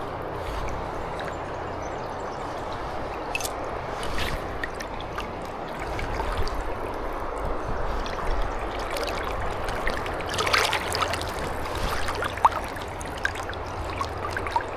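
A fast-flowing freestone river running steadily, a continuous rush and trickle of water over stones, with scattered small splashes and clicks and a brief louder splash about ten seconds in.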